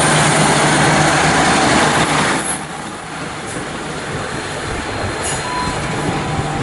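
Class 150 Sprinter diesel multiple unit moving on the rails, its underfloor diesel engine running loudly with a steady low hum for the first two seconds or so. The sound then drops suddenly to a quieter rumble of a train rolling slowly over the track.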